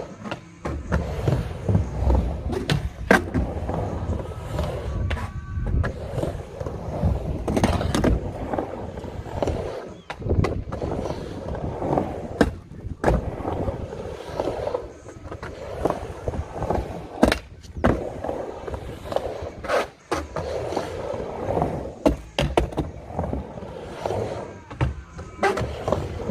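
Skateboard riding back and forth on a backyard mini ramp: a steady rumble of the wheels rolling on the ramp, broken every second or two by sharp clacks and knocks of the board at the top of the ramp.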